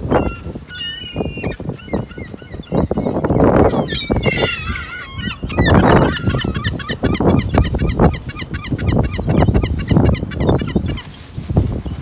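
Herring gulls calling over and over, short harsh pitched calls, with a quick run of repeated notes in the second half, over a steady low rumble.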